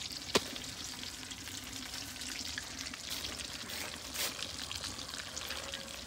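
Food frying and sizzling steadily in a pan, with one sharp tap about a third of a second in.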